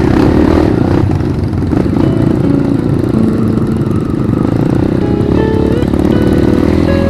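Motorcycle engine running steadily while riding along, with music playing over it.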